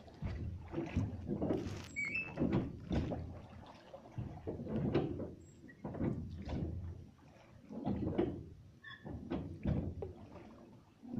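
Irregular knocks and clunks against a small boat's hull, with water moving around it and a few short squeaks.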